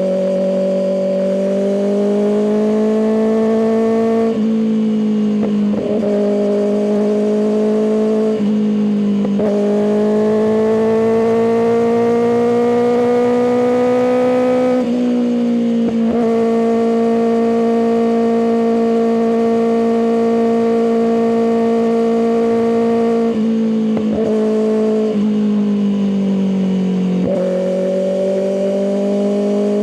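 Kawasaki ZX-6R inline-four engine through an M4 aftermarket exhaust, being ridden through the gears. The pitch climbs in each gear and drops sharply at several shifts, with a stretch of steady cruising in the middle.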